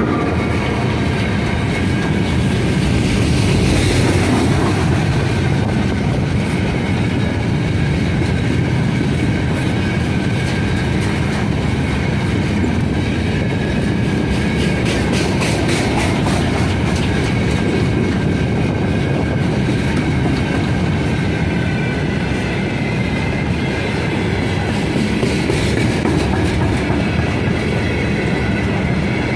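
A long freight train of open gondola wagons rolls past close by, right after the end of a 3ES5K Ermak electric locomotive. The wheels make a steady loud rumble on the rails, with clickety-clack over the rail joints and a stretch of rapid clicking about halfway through.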